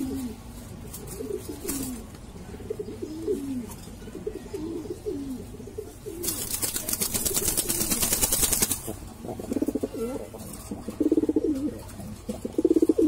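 Fancy pigeons cooing in a breeding pair, a run of short rising-and-falling coos. About six seconds in there is a loud flurry of wing flapping that lasts a couple of seconds as the cock mounts the hen to mate. Louder, rapid pulsing coos follow near the end.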